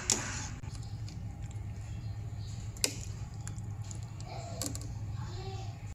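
Low steady background rumble with three sharp clicks, at the start, near the middle and later on.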